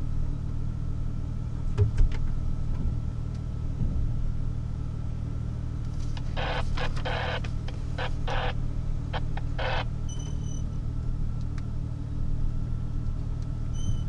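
Jeep Wrangler TJ engine running at a low, steady drone while crawling a trail. Around the middle comes a run of short scratchy noises.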